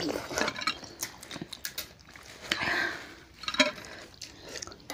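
Close-miked eating sounds: slurping and chewing of spicy noodle soup and crab, with short clicks of forks and spoons against ceramic bowls.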